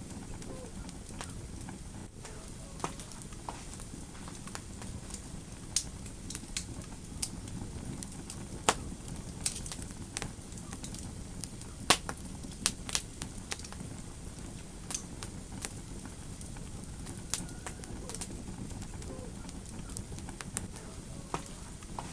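Wood fire burning in a fireplace: a steady low rumble of flames with irregular sharp crackles and pops, the two loudest about nine and twelve seconds in.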